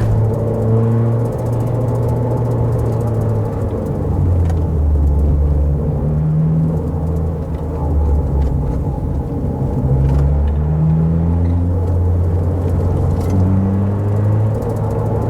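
Car engine pulling along a winding road, its note rising and falling and stepping between gears several times, over steady road and tyre noise.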